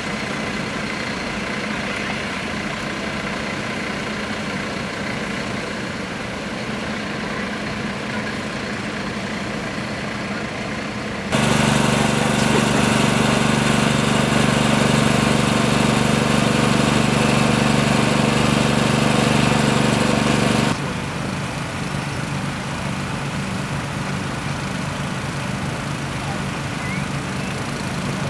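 An engine running steadily at idle with a low hum. About eleven seconds in, a much louder engine sound with a strong low hum cuts in suddenly, then cuts out just as suddenly about ten seconds later.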